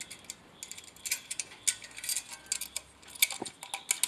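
Irregular light clicks and small metallic taps from hand tools and wires being handled while a receptacle is wired, over a quiet background with no fan or air-conditioner hum.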